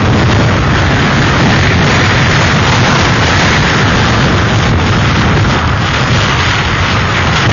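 Hurricane-force wind battering an outdoor webcam's microphone, with driving rain: a loud, steady rushing noise over a deep low rumble, with no letup.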